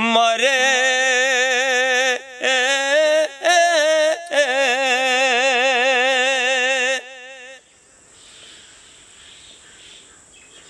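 A man's unaccompanied voice singing a Punjabi Sufi kalam in long, wavering held notes, breaking off about seven and a half seconds in. Under it are faint bird chirps and a steady high insect trill.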